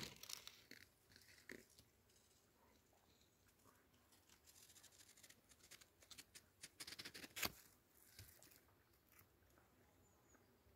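Faint, intermittent rustling and crackling of fig leaves and branches brushing close to a handheld phone's microphone, with one sharper click about seven and a half seconds in; between these, near silence.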